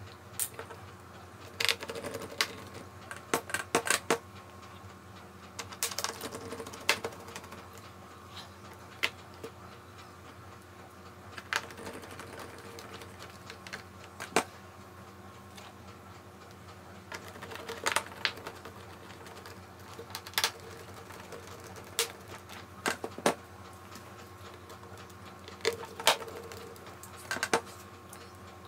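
Precision screwdriver driving small screws into the back cover of a Dell G7 7700 laptop: irregular light clicks and taps of the bit and screws against the cover, in scattered clusters with short pauses between.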